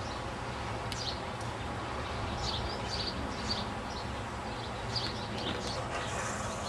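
Small songbirds chirping, short high calls coming every second or so, over a steady low background hum.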